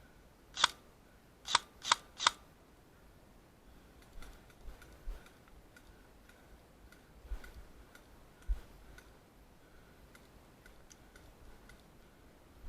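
Airsoft gun firing four single shots, each a short sharp snap, irregularly spaced over about two seconds, followed by a few faint ticks and thumps.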